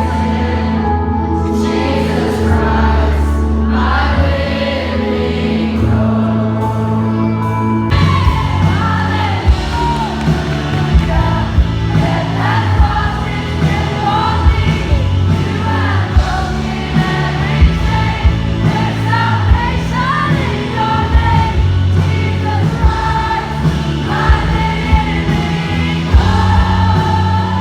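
Christian worship song with a group of voices singing over held keyboard and bass chords; a steady drum beat comes in about eight seconds in.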